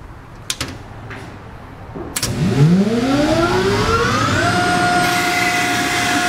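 A few clicks, then about two seconds in the Quincy 25 HP rotary screw air compressor starts. Its electric motor and screw air end spin up with a rising whine that levels off into a steady running tone at full speed about four and a half seconds in.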